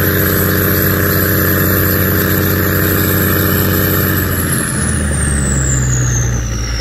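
Turbocharged Cummins 350 marine diesel running steadily under load, then throttled back about four seconds in. Its high turbo whine falls steadily in pitch as the turbocharger spools down, and the engine's low note drops.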